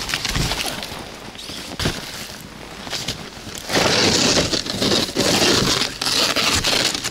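Crunching, scraping noise in rough bursts about a second long, louder from about halfway through, with wind on the microphone.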